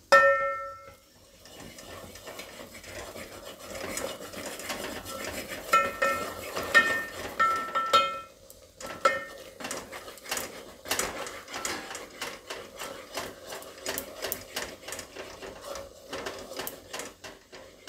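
A utensil stirring and scraping in an aluminium pot as gram flour is worked into hot water for dhokli dough, with a steady run of irregular clicks and knocks against the pot's side and bottom. A few short metallic rings come near the start and again about 6 to 8 seconds in.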